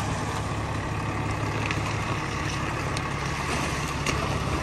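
Heavy dually pickup truck with a truck camper crawling at walking pace over a deeply potholed dirt road, its engine running steadily at low revs, with a few faint ticks.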